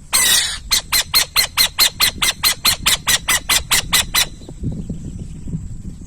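Owl calling: one harsh screech, then a fast even run of about seventeen short harsh notes, roughly five a second, that stops a little past four seconds in.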